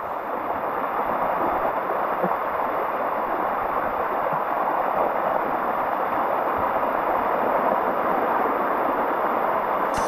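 Waterfall water rushing down a limestone cascade, a steady, unbroken rush heard from right inside the flow.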